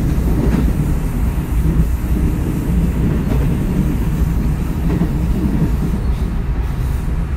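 JR West 221 series electric multiple unit running along the line, heard from inside the passenger car: a steady low running noise from wheels, track and traction gear.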